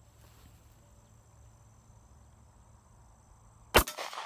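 A single shot from a compact concealed-carry pistol about four seconds in, cracking sharply and then rolling away in a long fading echo.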